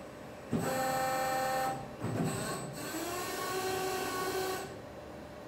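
Boy injection molding machine cycling to mold a part: its hydraulic drive whines in two stretches, the first starting suddenly about half a second in and the second, with a knock at its start and a rise in pitch, running until near the end.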